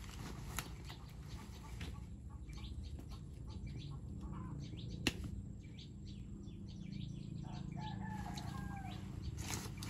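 A chicken calls once near the end, a short wavering cry, over light rustling and ticking with one sharp click about halfway through.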